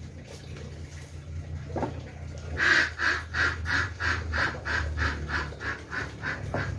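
An animal calling in a quick run of about a dozen short, evenly repeated sounds, roughly three a second, starting a little over two seconds in. A steady low hum runs underneath.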